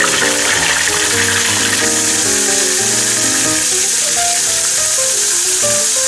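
Flour-coated bullfrog tadpoles deep-frying in a pot of oil, the oil sizzling and bubbling steadily. Background music with a simple melody plays over it.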